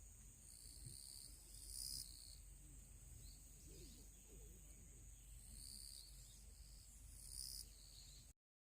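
Faint outdoor ambience with a steady high-pitched insect drone, swelling twice into louder shrill insect calls, then cutting off suddenly near the end.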